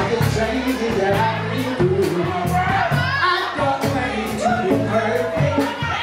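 Live band music with a male vocalist singing gliding, held lines over steady low bass notes, with drums keeping a steady cymbal beat.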